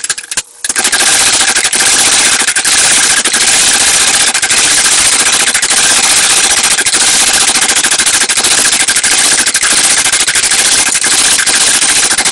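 Mechanical power hammer pounding a red-hot steel bar in a fast, unbroken run of blows, sped up so the strikes blur into a machine-gun-like rattle. There is a brief pause about half a second in.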